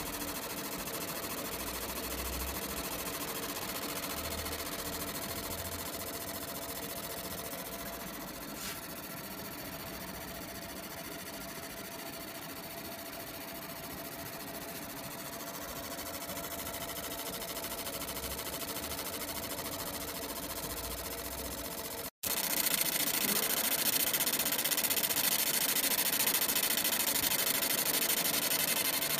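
Fiber laser marking machine running while it engraves a copper PCB board: a steady mechanical hum with a thin constant tone over it. About three quarters of the way through it cuts out for an instant and comes back louder and hissier.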